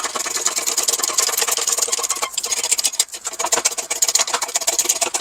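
Shop press running with a fast, continuous mechanical clatter while it presses a new front wheel bearing into a PT Cruiser steering knuckle. It breaks off briefly twice in the middle.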